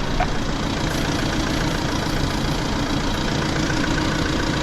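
Audi A5's engine idling steadily.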